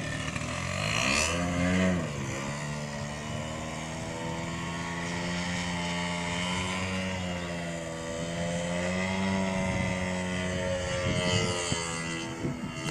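Radio-controlled aerobatic model airplane's motor and propeller buzzing in flight. The pitch swoops up and back down about a second in, then holds fairly steady with a slow rise and fall as the plane manoeuvres.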